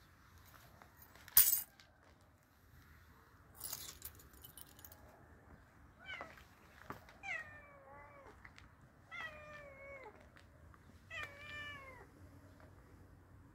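Domestic tabby cat meowing four times in the second half, each meow sliding down in pitch at the end. Earlier there is a short, sharp rustling noise about a second and a half in, the loudest sound, and a softer rustle around four seconds.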